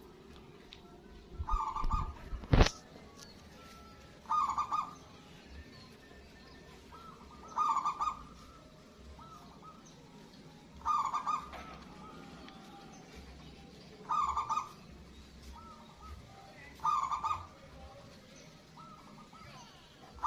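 Local zebra dove (perkutut) singing its cooing song: six short phrases, one about every three seconds. A sharp knock, the loudest sound, comes about two and a half seconds in.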